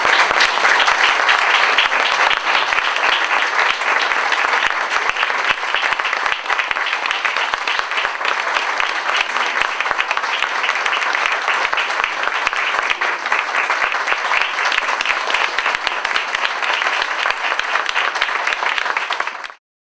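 Audience applauding steadily, then cutting off abruptly near the end.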